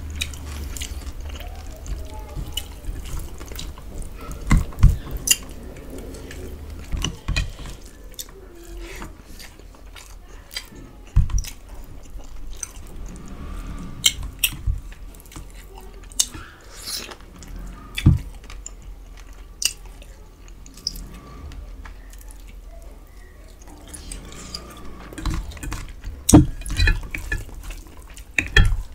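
Close-up eating sounds of rice and duck curry eaten by hand: wet chewing and lip smacking with scattered sharp clicks, and a few louder low knocks.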